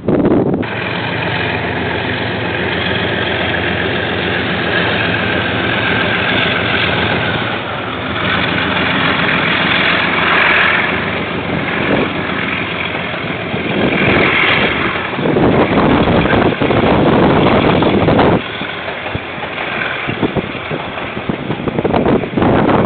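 KiwiRail diesel-hauled freight train passing: a steady engine drone from the locomotive, then the wagons rolling by with louder surges of rushing noise partway through and near the end.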